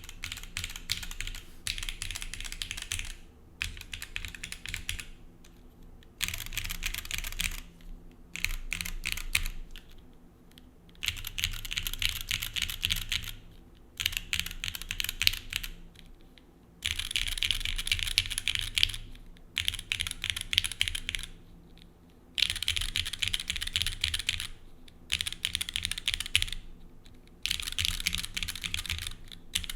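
Typing on a Bias TKL mechanical keyboard fitted with linear Gateron Black KS3 switches in an aluminium plate with no foam dampening, under GMK keycaps. The keystrokes come in fast runs of a few seconds each, broken by short pauses.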